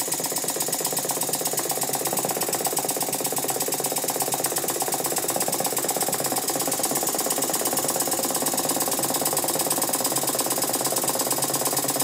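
Antique brass single-cylinder horizontal model steam engine running steadily on compressed air, with a rapid, even clatter. The rattle comes from its badly worn, loose-fitting moving parts, such as a big end with a lot of play.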